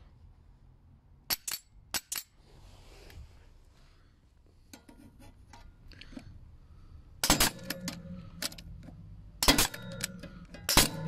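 Bostitch StrapShot pneumatic metal-connector nailer firing short hanger nails through steel joist hangers into timber joists: sharp shots, two quick pairs about one and a half to two seconds in, then several more from about seven seconds on.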